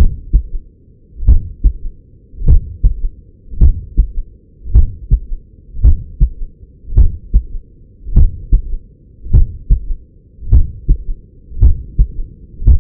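Heartbeat heard through a Stemoscope electronic stethoscope pressed to the chest at the mitral area: a steady lub-dub, a stronger first sound and a softer second close behind, at about 52 beats a minute. This is the slow resting rhythm of an athlete's heart.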